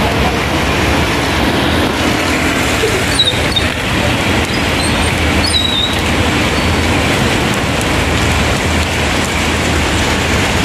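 Heavy rain pouring down in a steady, loud hiss on the wet pavement, with a low hum of vehicle engines and traffic underneath.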